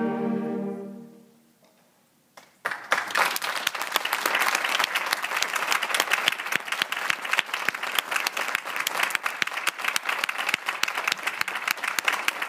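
A concert band's final held chord dies away over the first second and a half, ending the piece. After a short hush, audience applause starts about two and a half seconds in and continues.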